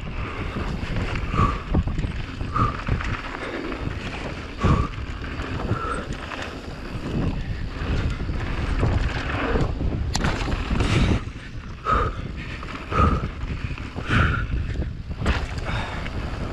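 Giant Reign Advance full-suspension mountain bike racing down a dirt trail, heard from a chin-mounted helmet camera. Wind buffets the microphone while the tyres rumble and the bike knocks and rattles over bumps.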